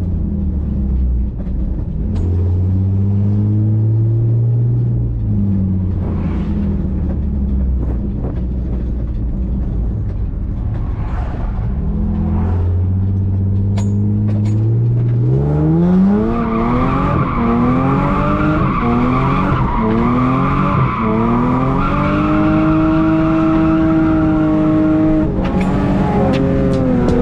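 Lexus GS300's straight-six engine under way, its revs climbing and dropping several times as it accelerates through the gears. About halfway through it makes one long climb to a higher pitch and holds there.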